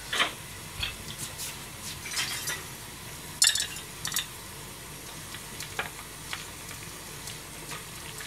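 Beef and oyster mushroom broth simmering in a frying pan, a steady soft bubbling hiss. A few sharp clinks of a ladle and small dish sound over it, the loudest about three and a half seconds in.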